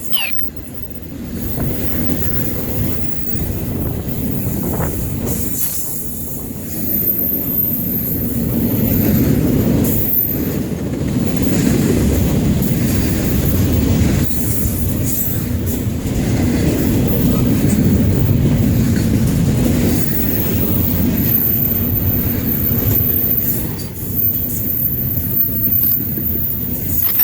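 Train rolling past, its wheels rumbling steadily on the rails, with a thin high-pitched wheel squeal coming and going.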